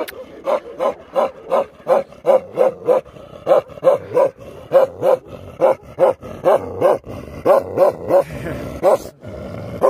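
A large black-and-tan long-coated dog barking steadily, about three barks a second, with a short break near the end.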